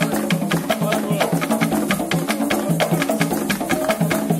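Upbeat dance music driven by drums playing a fast, steady beat over a sustained melody line.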